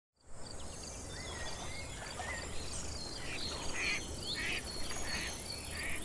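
Outdoor ambience of insects trilling steadily, with birds chirping and calling on and off: short whistles early, then a run of harsher calls from about halfway.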